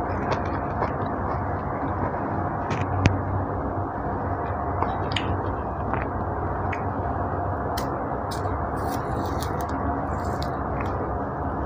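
An orange being peeled by hand: scattered short crackles and small tearing clicks of the peel, more of them in the second half, over a steady low hiss.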